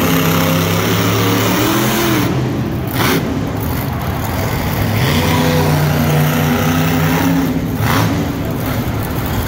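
Monster truck engines revving, held at steady high revs for a couple of seconds at the start and again from about halfway, the pitch bending as the throttle changes.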